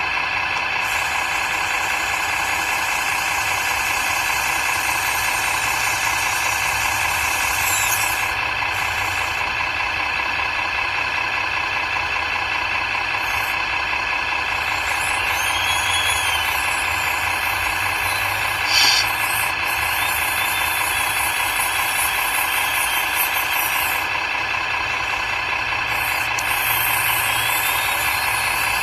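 Radio-controlled model vehicle running: a steady mechanical sound made of several even tones, with one short sharp click about 19 seconds in.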